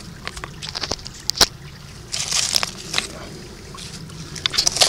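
Stones and loose shale clicking and scraping as a creek bank is dug through, with a sharp pair of knocks about a second and a half in and a rustling scrape a little later, over a soft slosh of creek water.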